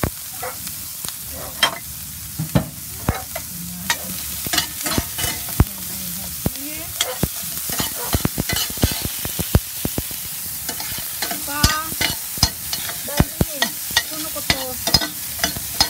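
Chopped garlic and onion sizzling as they fry in a pan, with a utensil stirring and clicking against the pan many times.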